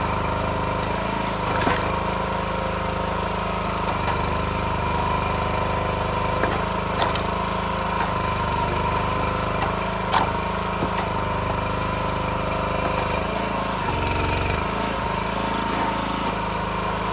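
Gas engine of a Timberwolf TW-5 log splitter running steadily, its note changing briefly about fourteen seconds in. A few sharp knocks from the wood being split and handled.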